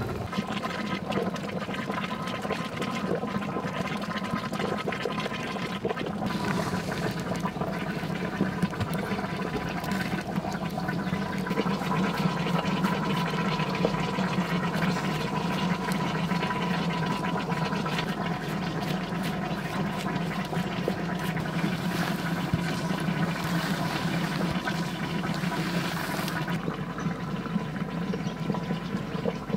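Steady, continuous rushing of water with no breaks.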